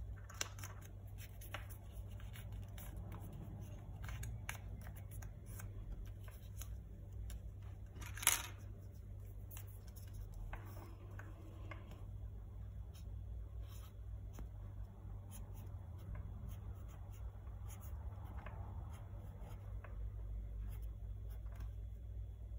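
A small sheet of paper handled and folded, rustling and creasing, with one sharp snap about eight seconds in. Later a felt-tip pen scratches faintly as it writes on the paper.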